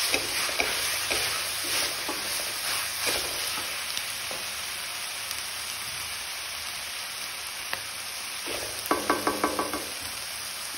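Sliced onions and green peas sizzling in oil in a kadhai, with a flat spatula scraping through them in the first few seconds and then a steady sizzle. A brief rapid rattle comes about nine seconds in.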